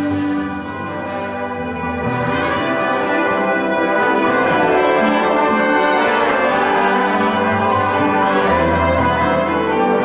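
Live big-band horn section of saxophones, trumpets and trombones playing together in long held notes, dipping slightly just after the start and swelling louder from about two seconds in.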